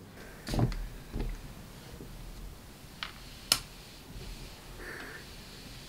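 Gauze fabric being handled and pressed with a steam iron: soft fabric rustling about half a second in, two sharp clicks around three seconds in, and a short soft hiss near the end.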